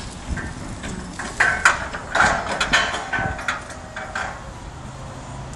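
Metal clanking and rattling as racks of truck parts are handled and a forklift drives up: a dense run of knocks from about one to four seconds in. A steady low hum comes in near the end.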